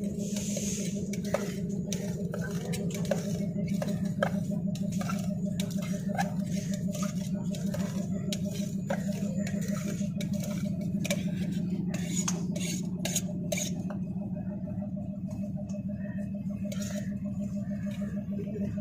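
Knife chopping guava inside a steel mug, with irregular metallic clicks of the blade against the steel, fewer in the last few seconds. A steady low hum runs underneath.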